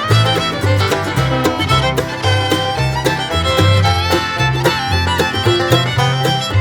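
Upbeat bluegrass-style background music with fiddle, a walking bass and a steady beat.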